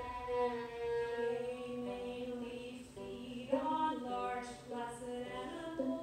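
A woman singing while playing the violin herself, a slow dark lullaby. The voice and bowed violin hold long notes, changing pitch about halfway through.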